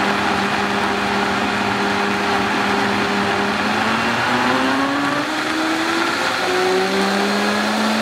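Vitamix countertop blender running at speed, puréeing cooked tomatoes, onion and garlic into soup: a loud, steady whir. The motor hum rises in pitch twice in the second half.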